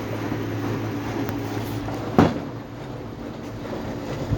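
Inverter washing machine running with a steady motor hum, working normally after repair. One sharp knock about two seconds in.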